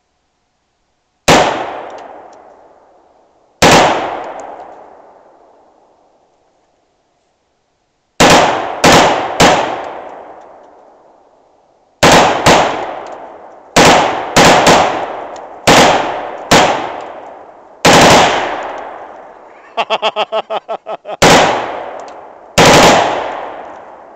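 Semi-automatic AR-15-style rifle firing about fifteen single shots at an uneven pace, sometimes two or three in quick succession half a second apart. Each shot is loud and rings out, fading over a second or two. A short fast rattle comes about twenty seconds in.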